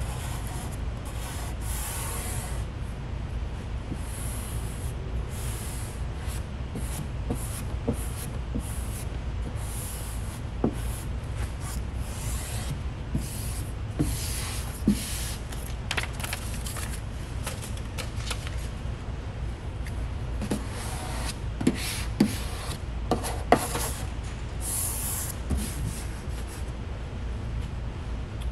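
Hands and a squeegee rubbing and smoothing vinyl graphic film onto a car's body panel, making repeated short swishes and small ticks over a steady low hum.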